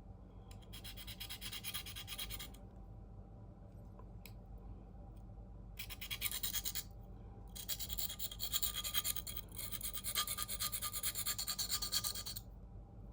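Steel knife blade in CPM 4V scraped in quick repeated strokes across a coarse 325-grit diamond sharpening plate, in three spells with short pauses between: reprofiling the edge bevel.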